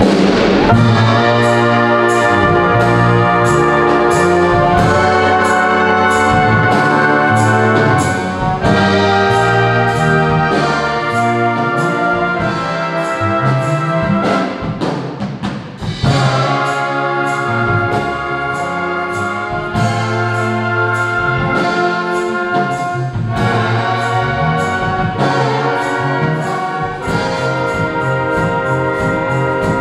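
School wind band playing an up-tempo piece: trumpets, trombones and saxophones over a repeating low bass line and a steady drum beat.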